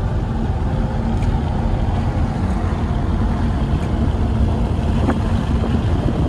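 Steady road, tyre and engine noise heard inside the cabin of a moving Audi car, a dense low rumble with a faint steady hum.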